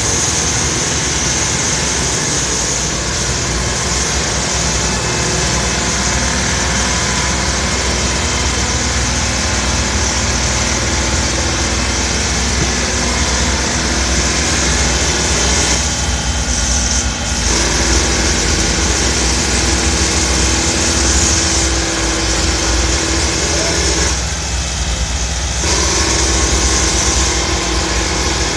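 Steady running of idling truck and vehicle engines with continuous street noise.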